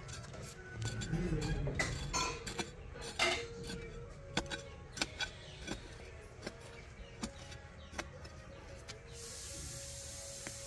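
A series of irregular clicks and knocks, sparser and sharper toward the middle, giving way to a steady hiss near the end.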